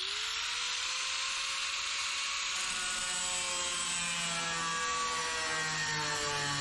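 A handheld electric power tool spins up with a rising whine, then runs steadily. Its pitch sags from about halfway through as it cuts into the steel legs of a galvanized, polymer-coated raised bed.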